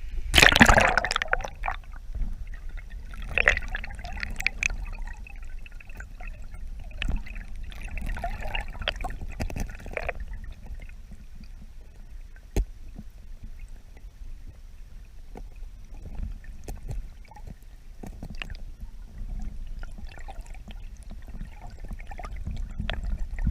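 Stream water splashing and gurgling close to the microphone, with one loud splash about half a second in, then scattered drips and small clicks over a steady low rumble of moving water.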